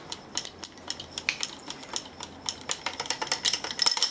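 Copeland Compliant scroll compressor running open with its fixed scroll removed, over a low motor hum: the unbolted orbiting scroll rattles and clatters loose in its housing. The clatter grows faster and louder near the end as the speed is turned up, a rough, unbalanced running that it doesn't like.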